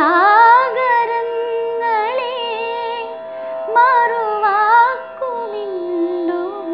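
A woman sings a Malayalam film melody solo, in long phrases with ornamented bends of pitch, over a steady drone, with no percussion. A slower, falling phrase comes after about five seconds.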